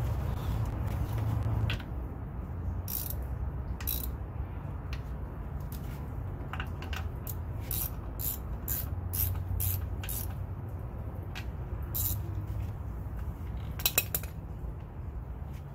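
Ratchet wrench clicking in short runs as the bolts holding an outboard's lower unit to the midsection are turned in, a few clicks a second, with a louder pair of clicks near the end.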